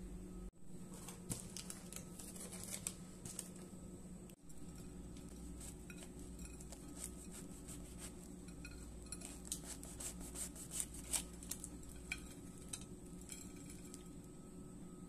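A knife cutting through a baked bagel's seed-topped crust over a ceramic plate: scattered small crackles and clicks, busiest around the middle, over a steady low hum.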